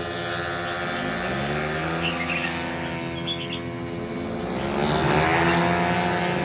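Several race car engines running at once, with revs climbing as the cars accelerate about a second in and again near the end, when the sound grows louder.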